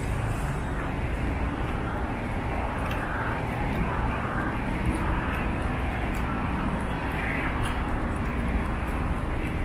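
Steady rumble of city street traffic, with faint light clinks from keys hanging at the walker's waist.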